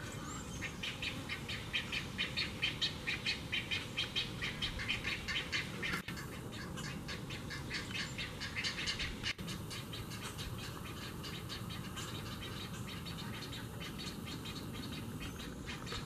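Great egret fledglings begging at the nest: a rapid, steady run of harsh calls, about five a second, loud for the first ten seconds and fainter after.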